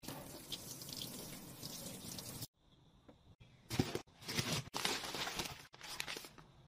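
Water running from a tap for about two and a half seconds, stopping abruptly, followed by several short bursts of splashing or handling noise.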